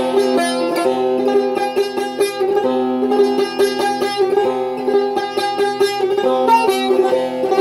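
Persian tar played with a plectrum: a quick run of plucked notes over strings that keep ringing, in Iranian classical style.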